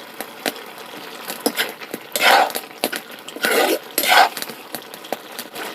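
A metal spoon clinking and scraping against a cooking pot, with three longer scraping strokes about two, three and a half and four seconds in.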